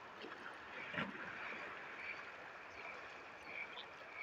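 Faint sea water lapping against a rocky shore, with a soft knock about a second in and a faint high-pitched tick repeating every half second or so.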